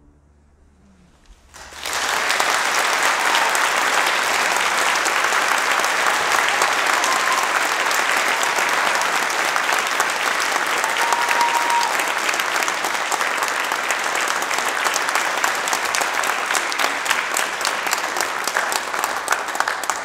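Audience applauding: after a quiet first two seconds the clapping starts all at once and keeps up steadily. Near the end it thins, so that single claps stand out.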